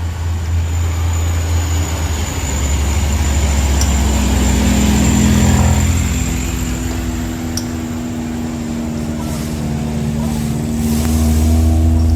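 Heavy truck diesel engine running hard on a steep uphill climb, a deep steady drone whose pitch rises slightly a few seconds in and then holds.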